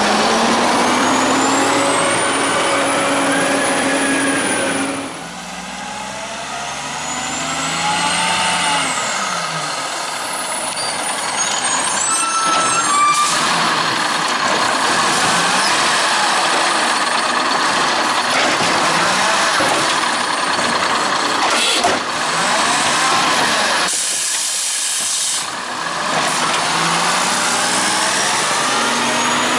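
WhiteGMC automated side-loader garbage truck with an Amrep body working a curbside pickup. Its diesel engine revs up and down as the arm grabs, lifts and dumps a cart, with a few sharp knocks of the cart being emptied and bursts of air-brake hiss.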